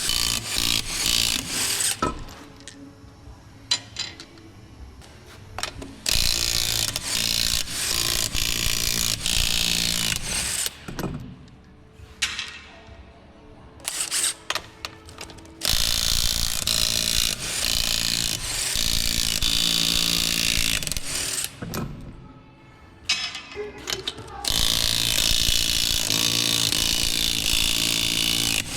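Impact wrench with a 21 mm socket loosening a wheel's lug nuts: four bursts of rapid hammering, each lasting a few seconds, with short pauses between nuts.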